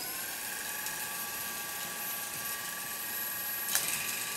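CYC Photon 2 mid-drive e-bike motor running under throttle with no load, spinning the chain and rear wheel freely on a workshop stand. It gives a steady whine made of a few held tones, with a single click near the end.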